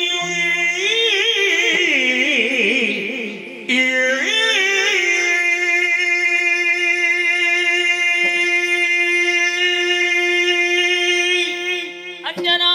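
Yakshagana verse sung over a steady drone. The voice winds through quick ornamented turns for the first few seconds, then holds one long note for about seven seconds before breaking off near the end.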